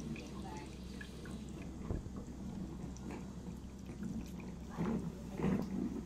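Sodium hydroxide solution dripping and gurgling in plastic tubing as the electrolytic cell is filled with electrolyte, with two louder bursts near the end.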